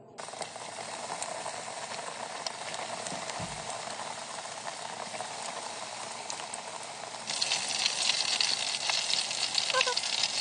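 Chicken strips frying in hot oil: a steady crackling sizzle that gets louder and brighter about seven seconds in.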